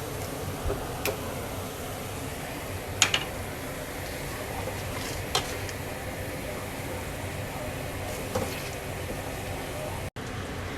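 Kitchen sounds: a steady hiss with four short, sharp clinks of utensils on cookware.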